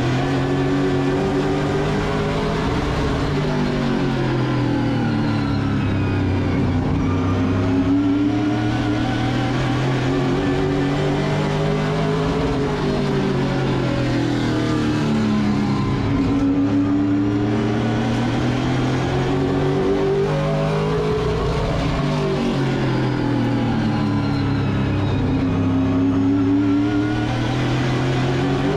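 Late model race car V8 engines at racing speed. The engine pitch falls and climbs again in long sweeps every several seconds, easing off into the corners and accelerating out of them lap after lap.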